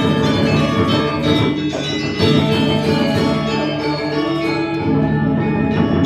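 Balinese gamelan orchestra playing: struck metallophones ringing in many overlapping notes, with a drum underneath.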